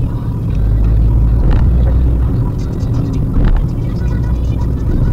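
Steady low rumble of a Maruti Suzuki WagonR driving, engine and road noise heard inside the cabin, with a few brief knocks from the road.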